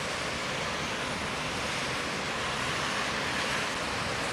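Steady hiss of car tyres throwing spray on a rain-soaked highway, mixed with heavy rain.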